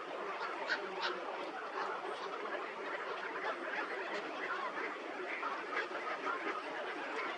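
A dense chorus of many birds calling at once, a steady mass of short overlapping calls with a few sharper high notes about a second in.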